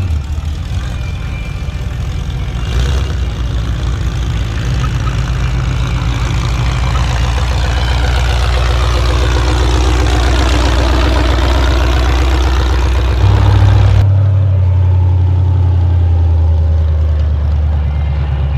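Demolition derby car engine running loud and steady at idle, its low note changing abruptly about fourteen seconds in.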